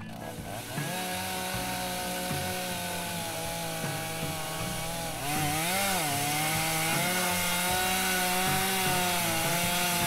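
Stihl MS460 two-stroke chainsaw in an Alaska chainsaw mill, running under load as it rips lengthwise through a cottonwood log. The engine holds a steady pitch, gets louder about five seconds in, then dips briefly and picks back up.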